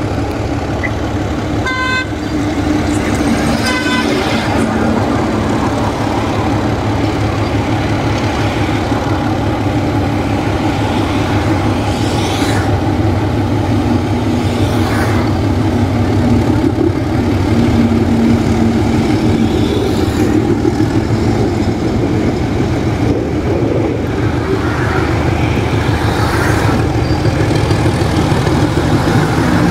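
ALCO diesel locomotive engine working hard under load: a loud, steady throb as it pulls its train, while it puts out heavy black exhaust smoke. A short high tone sounds twice, about two and four seconds in.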